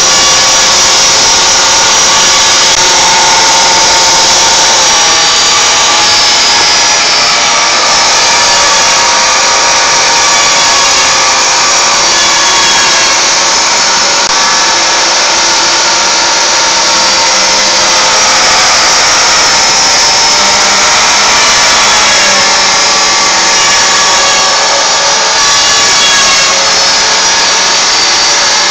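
CNC router spindle milling HDPE cutting-board stock: a loud, steady cutting noise with a high whine of several held tones that shift in pitch every few seconds.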